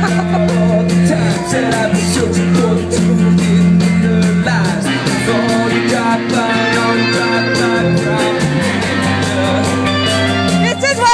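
Live rock band playing loud through amplifiers: electric guitar, bass guitar, keyboard and drums, with a singing voice.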